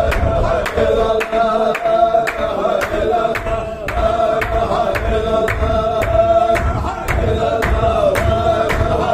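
Group dhikr chanting: many voices holding a repeated unison chant line, with a sharp rhythmic beat about twice a second running under it.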